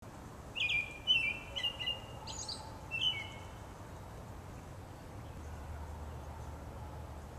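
A songbird sings about five short chirping phrases in the first three seconds, then stops. A faint low rumble comes in about five seconds in.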